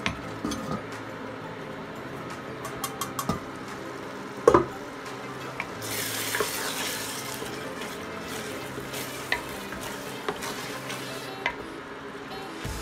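A stainless steel pot lid is lifted off with a clink, then a wooden spoon stirs thick, simmering chili, scraping and knocking against the pot. There is one sharp knock about four and a half seconds in and a short stretch of sizzling about six seconds in.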